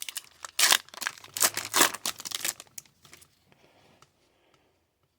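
Foil trading-card pack wrapper crinkling and tearing in a run of loud bursts, fading to a faint rustle about three seconds in.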